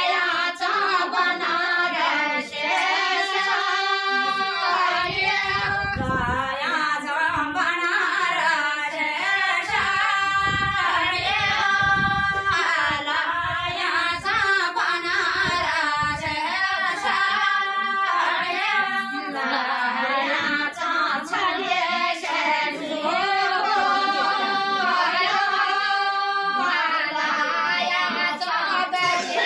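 A group of older women singing a Garhwali mangal geet, a traditional wedding rite song sung at kanyadaan. The voices are unaccompanied and hold long, drawn-out melodic lines.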